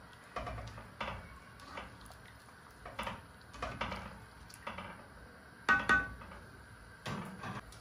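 Slotted spatula stirring rice in a pot of water, knocking and scraping against the pot's sides and bottom in short, irregular strokes. Two louder knocks come close together about six seconds in.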